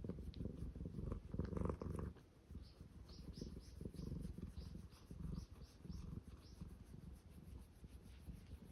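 Cat purring close by, a low rumble that is loudest about one to two seconds in. Through the middle comes a run of short, high-pitched squeaks.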